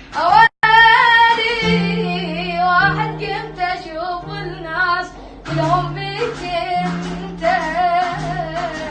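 A child singing an Iraqi Arabic pop love song over a backing track of held low notes and plucked strings; the sound cuts out for an instant about half a second in.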